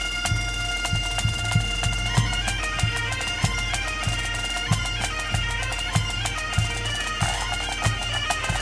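Background music on bagpipes: a steady drone, with the chanter melody coming in about two seconds in, over a regular drum beat.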